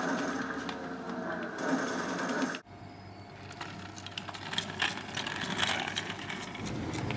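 Shooter video game sounds, gunfire and effects, playing from a television. They cut off abruptly about two and a half seconds in, giving way to quieter outdoor ambience with scattered clicks and taps.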